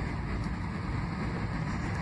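Steady low rumble of engine and airflow noise inside a jet airliner's cabin during the descent to landing.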